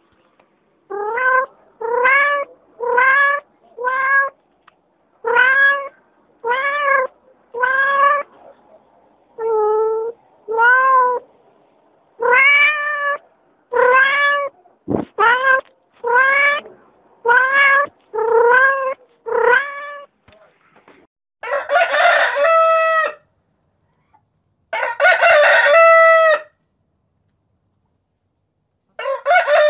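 A cat meowing over and over, about one short meow a second, followed in the last third by a rooster crowing three times.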